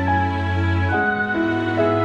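Background music: an instrumental of held notes and chords that change every half second or so.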